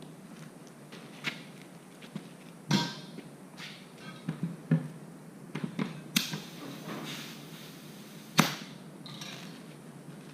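Scattered clicks, knocks and clatter of hand work with tools and parts, with three sharper knocks about three, six and eight and a half seconds in.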